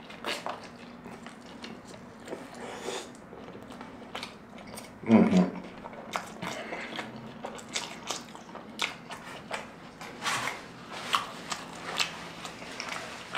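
Close-miked chewing of a mouthful of birria taco: wet smacking with many small crunchy clicks and crackles. There is one short, louder low sound about five seconds in.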